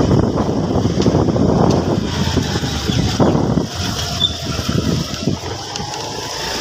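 Riding a motor scooter over a rough road: wind buffeting the microphone over the scooter's engine and road noise, easing off a little about halfway through.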